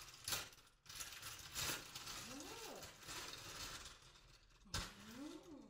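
Plastic packaging crinkling and rustling as a soft item is pulled out and unwrapped, with a few sharp crackles.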